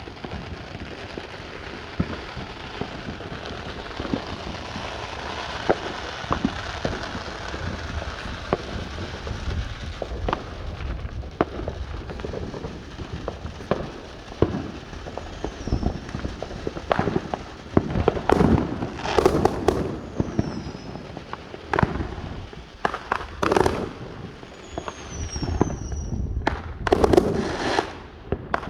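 Illegal consumer fireworks going off around a neighborhood: a steady hiss with scattered pops at first, then, from about halfway through, a run of loud sharp bangs from aerial shells. A few faint falling whistles come in among the bangs.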